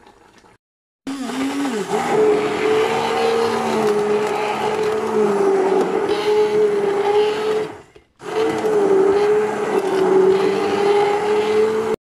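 Electric blender running, pureeing boiled pitted plums; its motor hum wavers slightly in pitch as it works through the fruit. It breaks off briefly about eight seconds in, then runs again.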